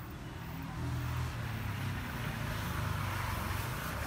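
A motor vehicle going by: a steady low engine hum with a rushing noise that swells over the first three seconds and eases near the end.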